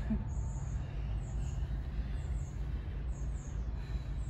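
Steady low machine hum, with faint high chirps that fall in pitch, repeating about once a second and often in pairs.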